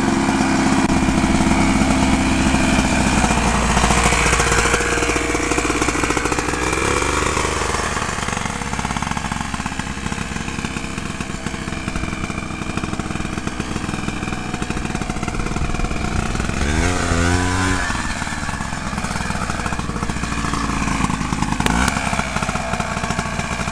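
Two-stroke single-cylinder engine of a 1983 Honda Odyssey FL250 fitted with a boost bottle, running under throttle as the buggy drives by. Its pitch drops a few seconds in, then climbs in short revs, the sharpest about two-thirds of the way through.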